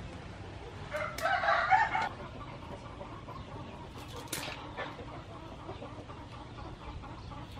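A chicken clucks in a short run of calls about a second in, the loudest sound. Around it, a few faint clatters and scrapes as raw blue crabs are handled in a metal basin of water.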